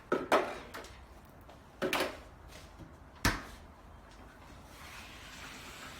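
Refrigerator doors being opened and shut, giving three knocks; the sharpest, most solid one comes about three seconds in.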